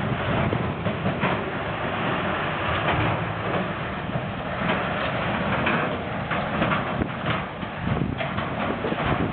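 Tatra Jamal three-axle dump truck driving over a wavy test-track obstacle, its engine running under a steady clatter of knocks and rattles from the chassis and tipper body.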